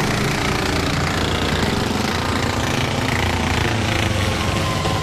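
Several racing lawn mowers' small engines running hard together at high revs, a loud, steady, rough-edged engine drone.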